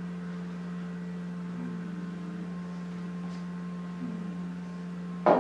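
Steady low electrical hum with a few thin steady tones over quiet room tone, with a couple of faint soft sounds while a glass of smoothie is drunk. A brief, louder sound comes near the end.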